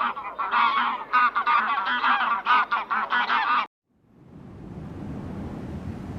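Flock of domestic waterfowl calling over one another in rapid, overlapping honks, then a sudden cut. After a brief silence a steady low rushing noise comes in.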